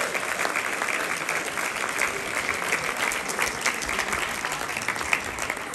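Audience clapping, dense and steady, dying down near the end.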